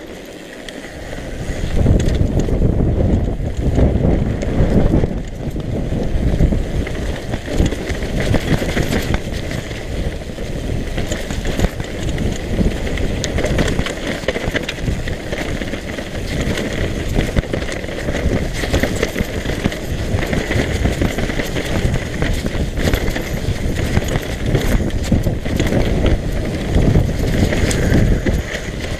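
Mountain bike riding fast down a rough dirt singletrack: heavy wind rushing over the camera microphone with the tyres on dirt and the bike's chain and parts rattling over the bumps. It gets much louder about two seconds in as the bike picks up speed.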